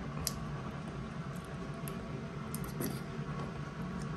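Faint eating sounds: a few light clicks of a spoon against a bowl and quiet chewing, over a low steady hum.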